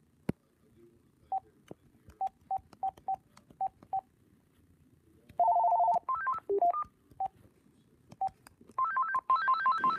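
AT&T CL82359 cordless phone handset beeping as its menu keys are pressed: about seven short single-pitch key beeps, then a longer two-tone beep. A few beeps at varied pitches follow, and from about nine seconds a fast chirping ringtone melody plays as the ringer tone and volume settings are previewed.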